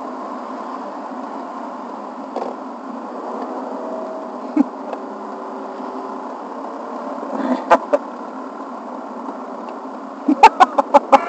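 Car engine and road noise heard inside the cabin while driving slowly through town streets, a steady thin drone. A quick run of sharp clicks comes near the end.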